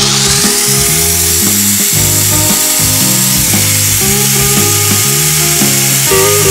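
Small electric blender motor running at high speed, blending a milk-and-banana milkshake. Its whine rises in pitch over the first second or so as it gets up to speed, then holds steady.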